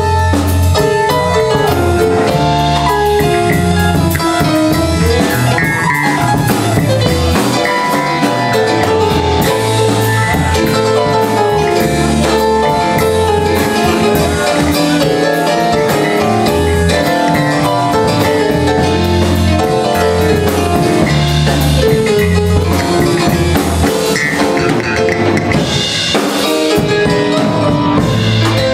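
Live Armenian jazz from a trio of electric keyboard, electric bass and drum kit playing together, with a walking bass line under the keyboard and drums.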